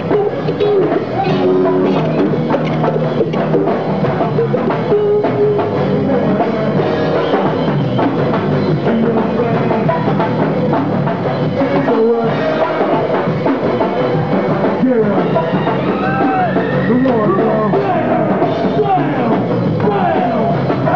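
Go-go music played live: a drum kit and percussion keep a steady driving beat, with voices calling out over it in the last few seconds.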